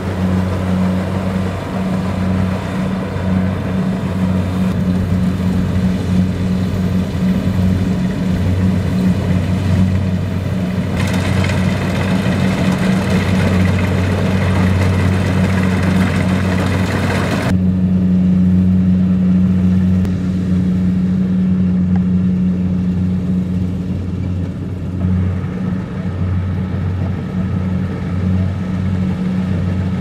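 Kubota DC-70 Plus rice combine harvester running steadily under load while cutting and threshing: a steady engine hum with the noise of its working machinery on top. The higher machinery noise grows louder about 11 seconds in and drops back about 17 seconds in.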